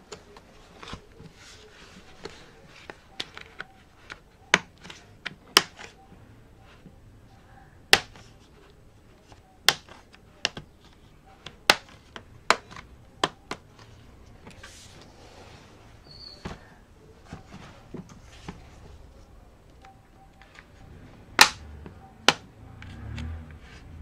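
Plastic bottom cover of a Lenovo ThinkPad E14 Gen 4 being pried around its edges, its snap clips releasing: scattered sharp plastic clicks and snaps at uneven intervals, the loudest near the end.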